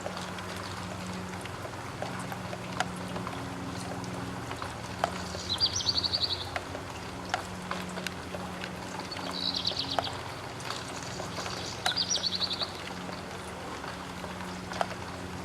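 Raindrops ticking irregularly on a roof window. A bird gives a short high trill three times.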